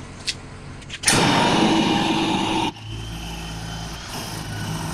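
Corded hammer drill running in one steady burst of about a second and a half, starting sharply about a second in and cutting off suddenly. A lower steady engine-like hum carries on after it.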